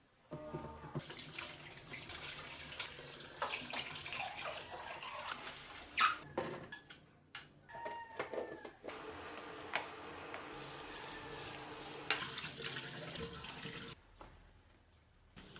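Tap water running into a sink, as in rinsing or washing up. It breaks off briefly about halfway and stops near the end, with a few sharp knocks along the way.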